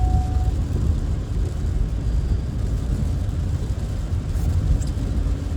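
Steady low rumble of road and engine noise inside a moving car, with a thin steady tone that stops about half a second in.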